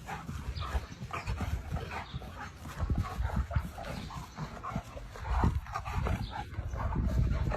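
A dog making a run of short whimpering and yipping sounds over a low rumbling noise.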